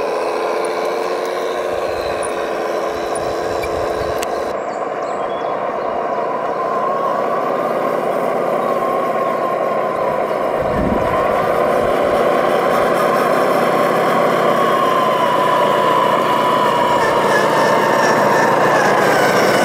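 Electric motor whine from radio-controlled model trucks at work, a steady whine that wavers in pitch, moves higher about four seconds in and grows a little louder in the second half.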